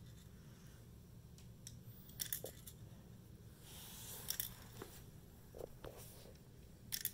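Faint, scattered small clicks and rattles of copper-plated steel BBs being dropped one by one into the loading port of a Daisy Red Ryder BB gun and shifting in a cupped hand.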